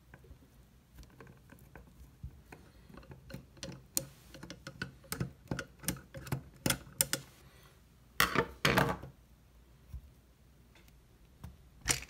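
Phillips screwdriver backing the screw out of a metal faucet handle: a run of small irregular metallic clicks and scrapes. About eight seconds in comes a louder metallic scrape and rattle as the handle is worked loose, and there is one more sharp click near the end.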